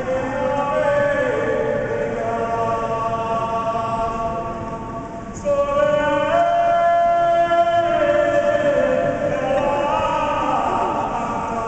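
A group of voices singing a traditional devotional song together in long, held notes. A louder phrase starts about five and a half seconds in.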